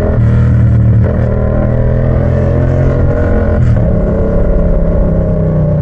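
Yamaha MT-07's 689 cc parallel-twin engine running loud through a short open pipe with no muffler, at a fairly steady pitch under way. There is one short break in the sound a little over halfway through.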